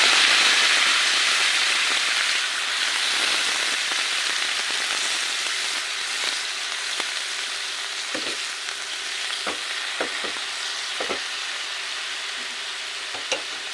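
Food frying in hot oil in a pan: a loud sizzle that starts suddenly and slowly eases, with a few light knocks of a utensil stirring against the pan.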